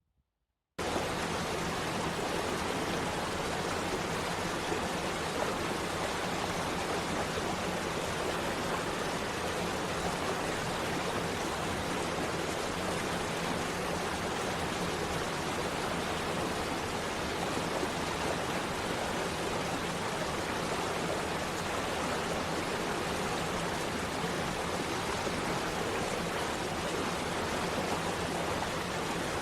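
Steady rush of falling water from a waterfall, starting abruptly about a second in.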